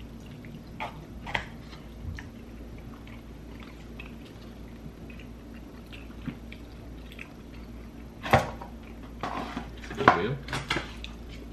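Close-miked eating sounds: a few faint clicks of a plastic fork in a foam cup of birria ramen, then, about eight seconds in, a sharp wet mouth smack followed by a cluster of loud smacking and slurping sounds.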